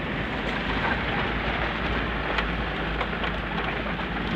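Toyota Land Cruiser LJ73 driving over a rough dirt track, heard inside the cab: a steady rumble of engine and tyres on the dirt, with scattered short clicks and knocks.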